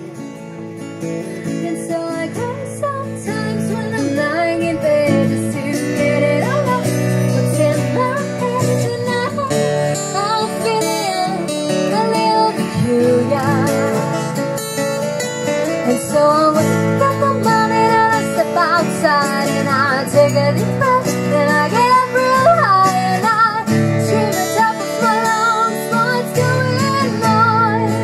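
Acoustic guitar music: strummed chords with a melodic line above, fading in at the start and then running on at a steady level.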